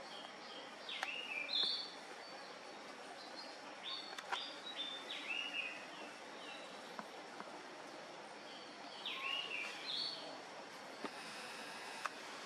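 Small birds chirping: clusters of short high chirps and whistles, some falling in pitch, come about a second in, around four to five seconds, and again around nine to ten seconds, over a steady background hiss.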